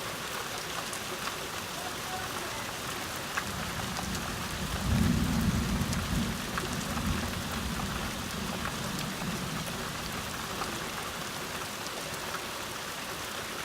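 Steady rain falling, with scattered drops ticking. About three or four seconds in, a low roll of thunder builds, is loudest a couple of seconds later, and rumbles away over the next few seconds.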